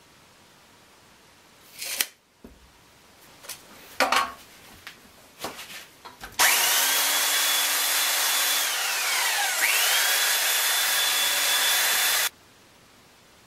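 Handheld belt sander running on the frame's wood for about six seconds. Its motor whine sags in pitch about halfway through and climbs back, then the sound cuts off abruptly.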